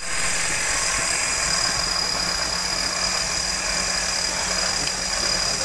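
Off-road 4x4's engine running steadily at low revs, close to idle, with a steady high hiss over it.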